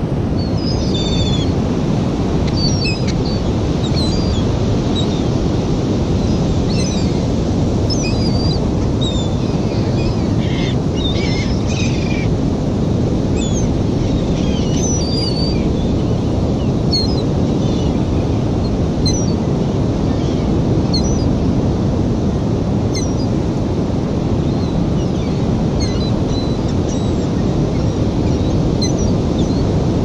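Gulls calling again and again with short, high cries, with a cluster of several calls together about ten seconds in. Under them runs a steady rush of surf and wind.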